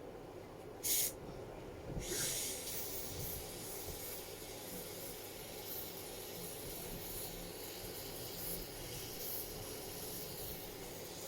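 Aerosol lace-adhesive spray (Ebin New York Wonder Lace Bond) hissing: a short spurt about a second in, then one long continuous spray.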